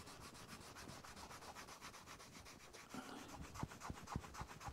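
Faint, brisk rubbing of a cloth back and forth over a textured aluminium Royal Enfield Bullet 500 gearbox casing, buffing a coat of Rub'nBuff metallic wax up to a sheen: fast, even strokes, about eight a second, with a few soft knocks in the last second and a half.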